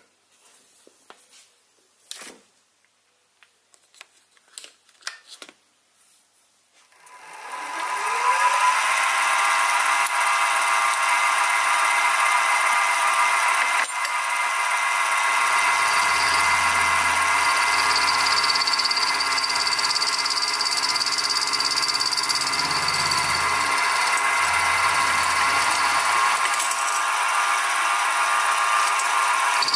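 A few faint clicks, then about seven seconds in a Sieg SX2P mini mill's spindle spins up with a rising whine and runs steadily. From about halfway through, an end mill cuts the rubbing faces into a small brass crosshead, adding a low rumble that comes and goes with the cut.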